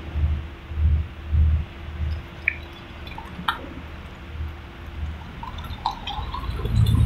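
Low rumble of a heavy-haul Cometto multi-axle modular trailer rolling slowly past under a 200-ton load, pulsing about twice a second and fading, over a faint steady hum. Passing-car noise rises near the end.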